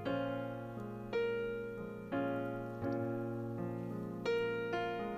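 Background piano music: notes and chords struck about once a second, each ringing on and fading.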